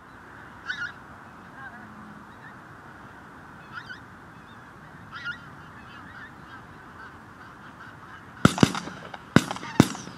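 Pink-footed geese calling: a flock chattering faintly and steadily, with a few separate calls, then several loud, sharp, high-pitched calls close by near the end.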